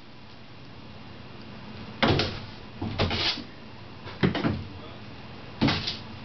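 A cat leaping up against a closed door, its body and paws thumping into it about four times, roughly a second apart, starting about two seconds in.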